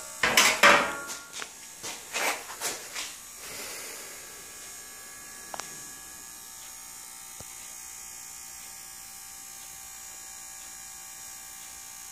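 Aluminum snowboard park rake clattering against metal as it is lifted and stood upright: several loud knocks and scrapes in the first three seconds. After that, a steady electrical hum with two faint clicks.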